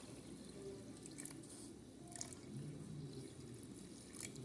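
Faint dripping and splashing of water being added to a boiling pot of sugar syrup.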